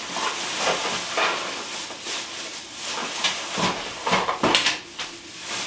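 Paper and thin plastic bags rustling and crinkling as packets of hardware are pulled out of them, with sharper crinkles about four seconds in.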